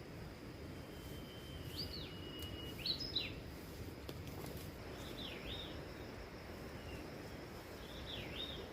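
A bird calling: several short chirps that dip and rise in pitch, coming a second or two apart. Behind them is a steady low background noise and a faint thin high hum.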